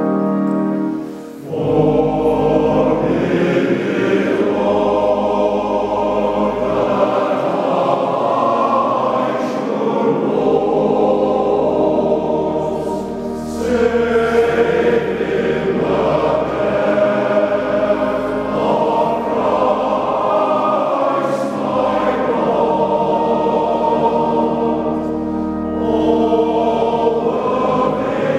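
A large massed male voice choir singing a slow sacred piece in harmony, in long phrases. The singing breaks off briefly about a second in and again about halfway through.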